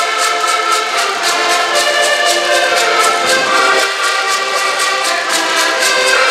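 A group of accordions playing a tune together, sustained chords and melody over a steady, even beat.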